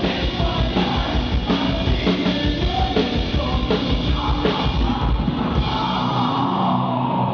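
Loud heavy rock band music: a drum kit and electric bass driving under distorted guitars. The deep low end drops away near the end.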